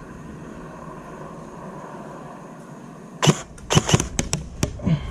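Quiet outdoor air, then about three seconds in a string of sharp, irregular cracks and snaps: airsoft BBs striking the players' cover.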